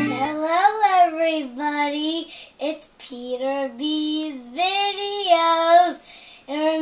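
A child singing a short melody in a high voice, holding and sliding between notes, with brief breaks between phrases.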